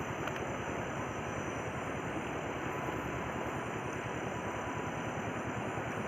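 River water rushing, a steady, even noise.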